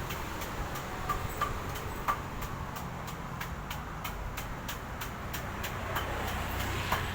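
Road traffic: motor vehicles passing on a street, a steady rumble, with a few brief high chirps over it.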